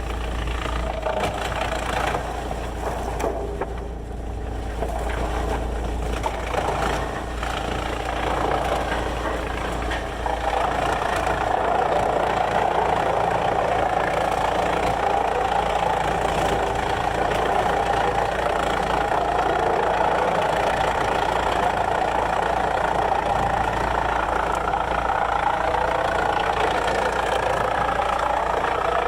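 Heavy sawmill machinery running steadily, its noise stepping up and growing denser about ten seconds in, then holding steady.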